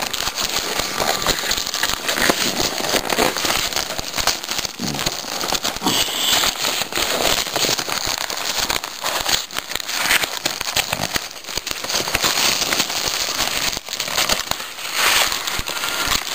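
Packaging crinkling and crackling continuously as a new keyboard is slid out of its box and unwrapped.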